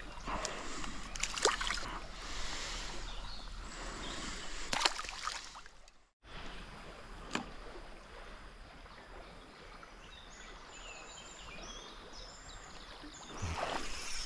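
River water flowing, with a few sloshes and sharp knocks in the first half. The sound cuts out briefly about six seconds in; after that the water is quieter, with faint short high chirps.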